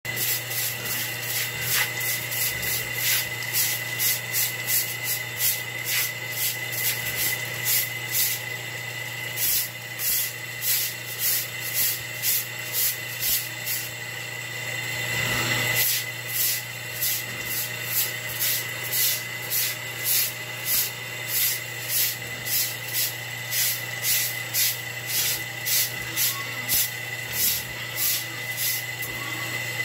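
A stick broom scrubbing a wet concrete pig-pen floor in quick, even strokes, about one and a half a second, with a short break near the middle. Under it is a steady low hum.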